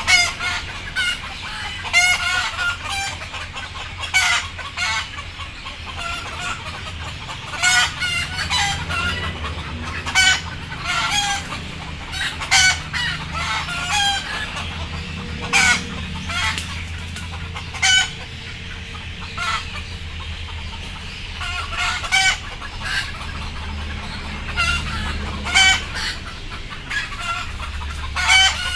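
Chickens clucking and squawking, short calls every second or two over a steady low hum.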